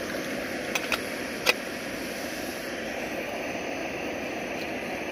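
Gas camping stove burner running with a steady rushing flame. A few sharp metal clinks about a second in, the loudest just after, as a lidded stainless steel mug is set down on the pot supports.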